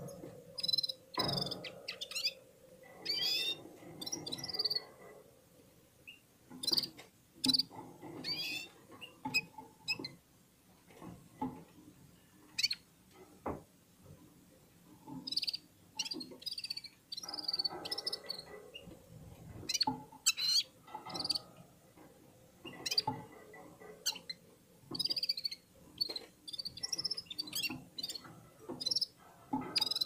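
Caged red-fronted serin twittering in short phrases of high, quick chirps that come and go, with a few sharp clicks between them.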